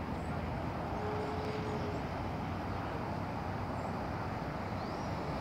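Steady outdoor ambience: an even low rumble and hiss, with a faint steady hum lasting about a second near the start.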